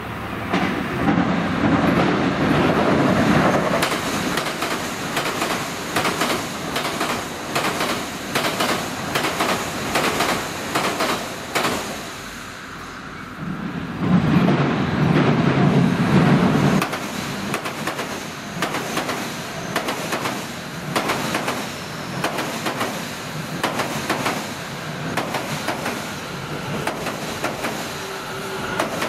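Electric commuter train crossing a steel girder railway bridge. Twice, near the start and again about halfway, the bridge gives a loud low rumble as a train comes onto it. Between and after these comes a steady run of sharp, evenly repeated wheel clacks over the rail joints.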